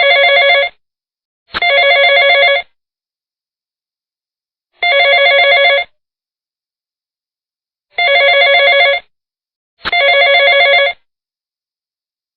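Telephone ringing: five rings of about a second each, a fast-warbling ring tone separated by silent gaps, with two pairs of rings coming close together.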